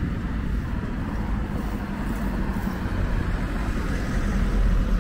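Road traffic on a city street: a steady low rumble of passing vehicles that swells briefly near the end.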